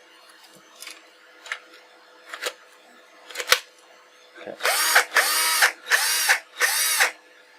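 A Black & Decker 12V cordless drill's motor run in four short bursts close together, each winding up and then back down. A few sharp clicks of handling come first.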